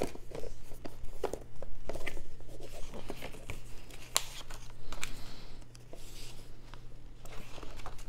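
Paper sheets and a printed booklet being handled: rustling and crinkling as a folded sheet is moved about and pages are flipped, with scattered light ticks.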